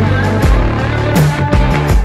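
Live band music, instrumental here: drum hits on a steady beat over held bass notes and guitar.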